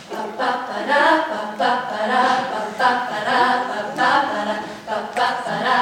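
Mixed a cappella vocal group singing sustained chords in short phrases that repeat about once a second.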